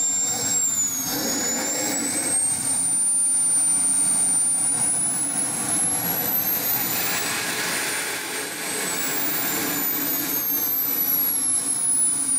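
KingTech K-310 model jet turbine running, its high whine dipping about a second in, then climbing steadily through a throttle run-up to a peak around the middle and slowly falling back again. The rushing exhaust noise grows louder at the peak.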